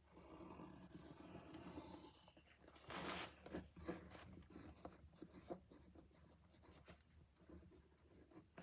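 Faint scratching of a drawing tool moving over paper as the picture is drawn, with small taps and a louder, brighter scrape about three seconds in.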